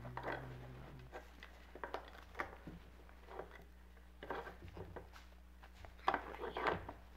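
Faint rustling and small clicks and scrapes of hands working on a plush animated reindeer toy, pulling at its fur covering and handling its insides.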